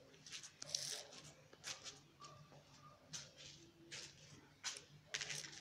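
Footsteps crunching along a path at walking pace, a short scrape about every half second, over a faint steady hum.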